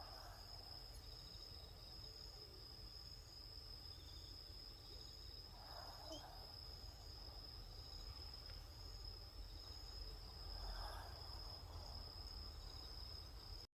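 Maltese dog snoring faintly in its sleep: three soft snores, each about a second long and roughly five seconds apart, over a steady high-pitched whine.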